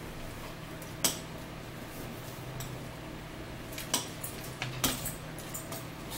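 Spoon clinking against a bowl at a meal table: a few sharp clinks, the loudest about a second in, with more near four and five seconds.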